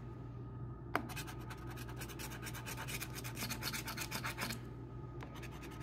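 Coin scraping the coating off a scratch-off lottery ticket in quick repeated strokes. It starts with a click about a second in, pauses briefly, and resumes near the end.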